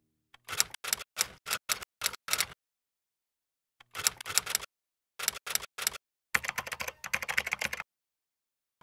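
Typing: quick runs of sharp key clicks in several short bursts with dead silence between them.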